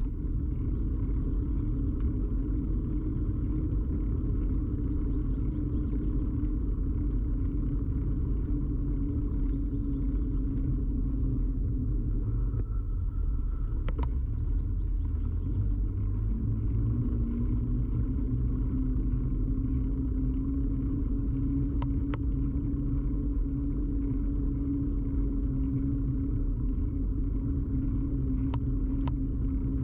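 Ride noise of a bicycle picked up through a camera fixed to the bike: a steady rumble of the wheels rolling on the road with a humming tone over it that fades about halfway and returns a little lower. A few sharp clicks or rattles come through, around the middle and near the end.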